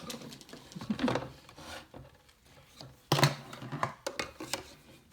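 Plastic toy play kitchen parts being handled: scattered light clicks, knocks and clatter, with the loudest cluster about three seconds in.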